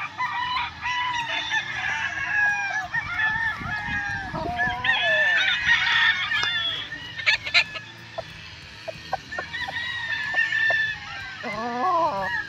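Many tethered gamecocks crowing and clucking at once, their calls overlapping, with a closer rooster calling near the end. A few short sharp clicks a little past the middle.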